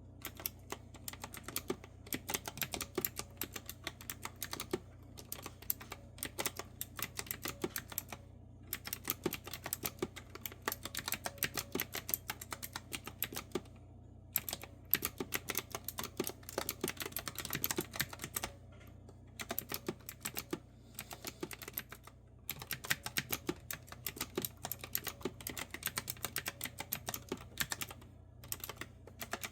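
Clicky retro-style keyboard with round keys being typed on in quick runs of keystrokes, broken by short pauses a few times.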